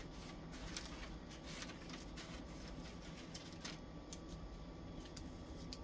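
Scissors cutting through wrapping paper, giving faint, scattered snips and rustles of paper.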